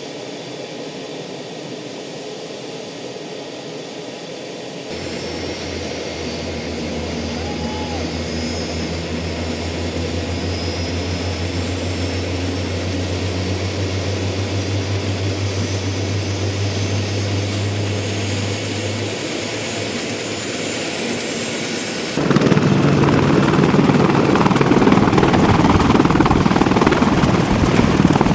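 Boeing AH-64 Apache twin-turboshaft attack helicopter running on the ground: the rotor beats steadily under a high turbine whine that rises slowly. About 22 seconds in the sound turns suddenly much louder and rougher as the helicopter lifts off close by.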